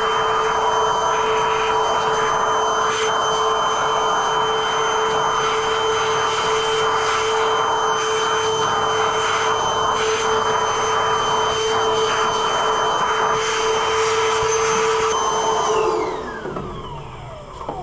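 An electric motor running at a steady speed with a steady whine, switched off near the end and winding down, its pitch falling as it stops.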